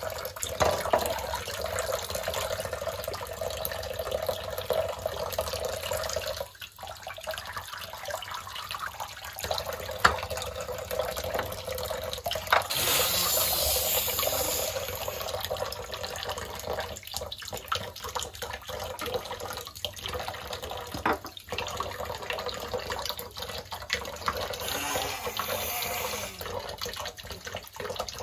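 Tap water running in a thin stream from a washbasin faucet and splashing into the sink basin, louder for a couple of seconds about halfway through.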